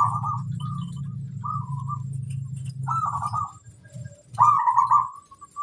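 Zebra dove (perkutut) cooing: about five short phrases of quick, bubbling coos. A low steady hum lies underneath until a little past halfway.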